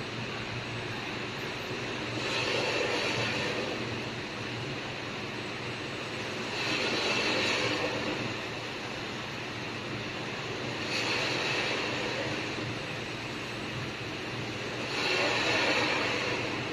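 Desktop laser welding machine running under a steady hum, with four louder hissing bursts about every four seconds, each lasting a second or two.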